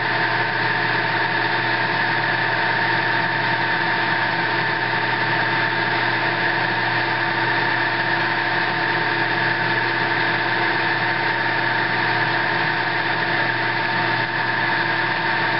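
Drill press motor running steadily at high speed while a 0.260-inch twist drill bores a bolt hole through a galvanized steel mounting plate, a constant hum with several steady tones over a hiss of cutting.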